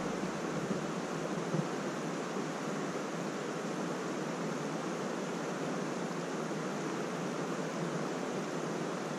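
Steady, even rush of flowing creek water.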